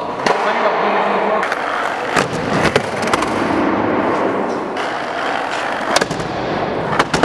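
Skateboard wheels rolling on a concrete floor with a steady crackly rumble, with several sharp clacks of a board.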